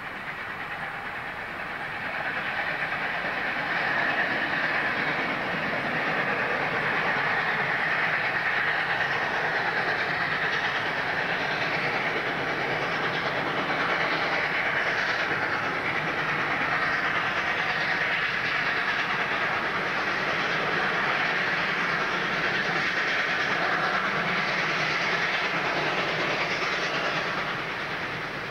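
Oil-fired SNCF 141R class 2-8-2 steam locomotive and its train of coaches passing: a steady train sound that builds about three seconds in, holds level, and fades near the end.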